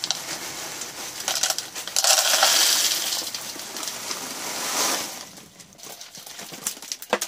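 Expanded clay pebbles poured from a bag into an empty plastic plant pot as a drainage layer, rattling and clattering against the pot and each other. The pour is heaviest about two seconds in and tapers off after about five seconds to a few scattered clicks.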